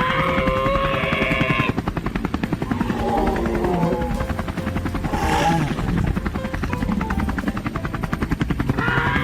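A fast, steady mechanical chopping noise over a low hum, with a held set of tones in the first couple of seconds and again near the end.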